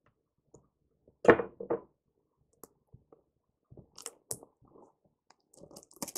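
Two dull thumps about a second in as a cardboard phone box is handled, then light, irregular crackling of its plastic shrink-wrap near the end as a knife is worked at it.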